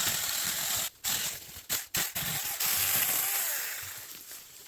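Saker mini cordless chainsaw cutting through a branch, the chain hissing through the wood in spurts with short breaks about one and two seconds in, then fading as the cut ends.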